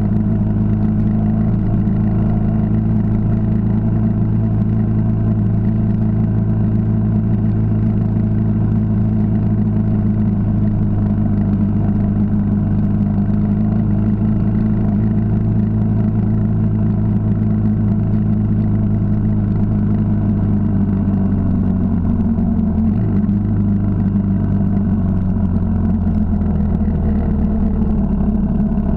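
Yamaha XT 600's single-cylinder four-stroke engine running under way at a steady speed, heard from the bike itself. About three quarters of the way through, the engine note falls and breaks off briefly, then rises a little near the end.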